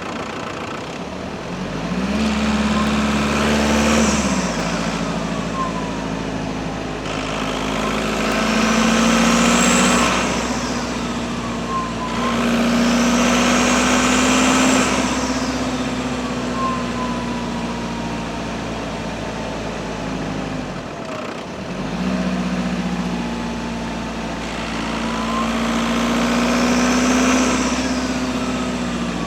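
Audi A6 4F 2.0 PD four-cylinder turbodiesel revved up and down four times. A high turbocharger whistle climbs with each rev and sweeps down as the engine falls back.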